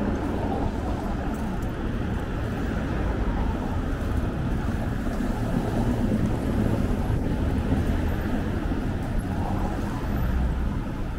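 Steady city street noise heard from a moving bicycle: car traffic with a low, constant rumble from the ride.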